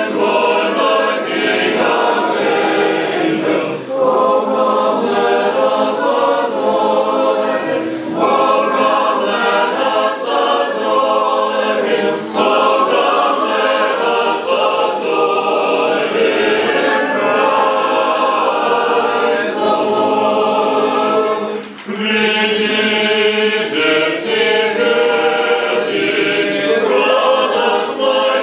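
A group of voices singing unaccompanied Orthodox liturgical chant in phrases, with brief breaks between them and a slightly longer break about 22 seconds in.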